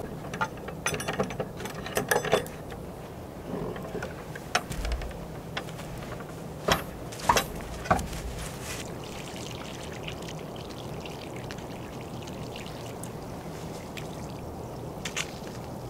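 Wooden plank door of an old log hut being unlatched and pulled open: a quick run of clicks and rattles, then a few single louder wooden knocks, followed by a steady faint hiss.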